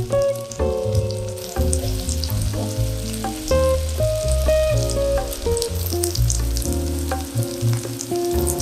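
Bananas cooking in a pot on the stove, with a continuous crackling, sizzling bubble, under background music with a melody and bass line.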